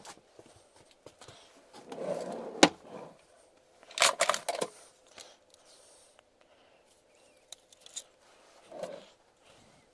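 A metal cabinet drawer slides open and stops with a sharp knock. About a second later a stack of steel circular saw blades clinks and rattles as it is lifted out, followed by a few lighter scrapes and ticks.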